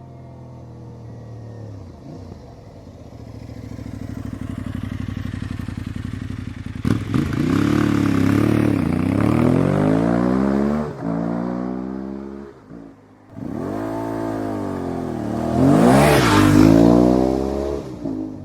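Aprilia Tuareg 660 parallel-twin motorcycle engine on a ride-by, revving up and dropping back through gear changes as it approaches. The sound dips briefly about two-thirds of the way through, then is loudest as the bike passes close near the end and begins to fade.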